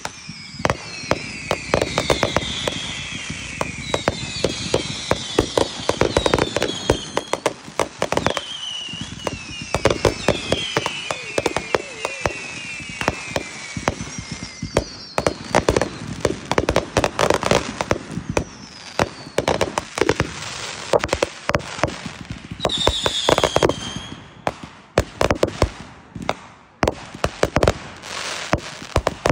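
Aerial fireworks going off in quick succession: many sharp bangs and crackles, with falling whistles through the first half and again about two-thirds of the way in.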